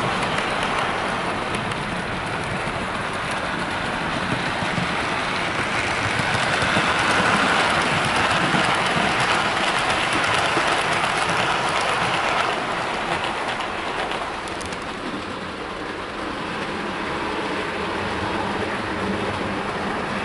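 Model trains rolling along the track close by: a steady rushing hiss of small metal wheels on rail with fine rapid clicking, growing louder as a second train passes and dropping away after about thirteen seconds.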